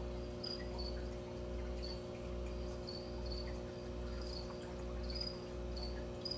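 Steady low hum with a slowly pulsing drone, the sound of aquarium equipment running. Short high-pitched chirps repeat irregularly over it, about two a second.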